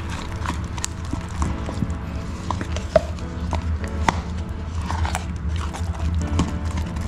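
Background music, over scattered light clicks and scrapes from polyester putty being stirred in a plastic cup; the sharpest click comes about three seconds in.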